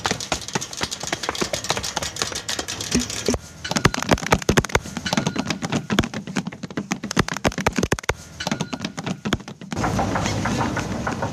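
A dense, rapid run of clicks and taps that changes character about three and a half seconds in. Near the end it gives way to a steadier rushing noise.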